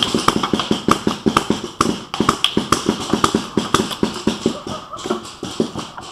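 Quick, uneven run of taps and knocks, about five or six a second: a paintball player's running footsteps with his gear jostling.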